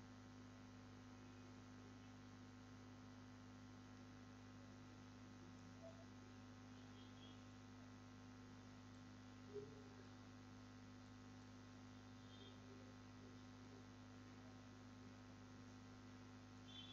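Near silence: a steady low electrical hum, with a faint tick about halfway through.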